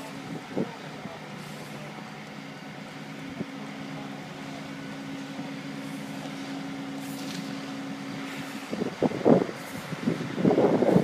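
A vehicle engine idling with a steady low hum. About nine seconds in, louder irregular sounds break in over it.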